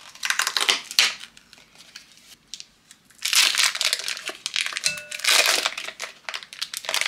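Foil wrapper of a block of cream cheese being crinkled and peeled open. The crackling is sparse at first and turns dense and louder about three seconds in.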